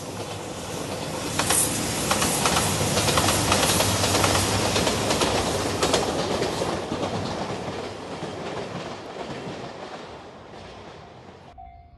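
A JR 2700 series diesel limited express train passes at speed, its wheels clacking over the rail joints; the noise builds to a peak a few seconds in and then fades away. Near the end it cuts abruptly to a level crossing's warning bell ringing in steady repeated pulses.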